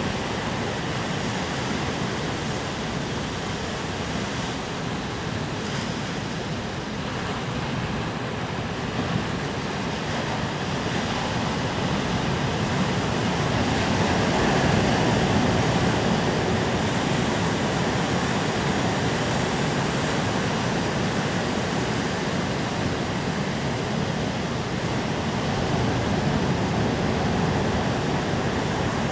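Ocean surf breaking and washing over a rocky, sandy shore: a steady wash of waves that swells a little louder about halfway through.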